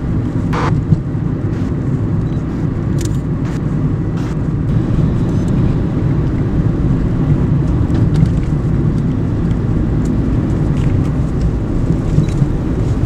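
Steady low rumble of a car being driven, engine and road noise heard from inside the cabin, with a few faint ticks.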